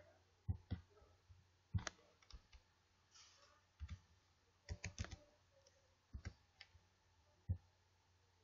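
Computer keyboard keystrokes and mouse clicks: a dozen or so scattered sharp taps, bunched together a little past the middle, as a short code is typed into a login form. A single loud click comes near the end, with a faint low hum underneath.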